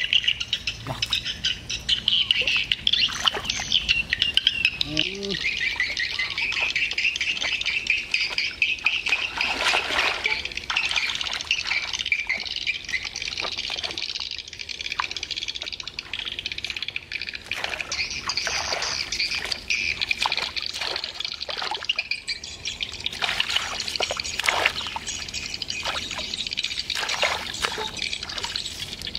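Insects chirring in a dense, high, steady drone that thins out about halfway through, over irregular splashes, trickles and rustles of hands and feet working through shallow grassy water and grass.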